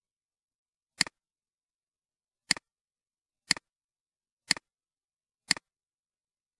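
Computer mouse clicks, five in all: the first about a second in, then about one a second. Each is a sharp click with a softer second click just after it, the press and release of the button.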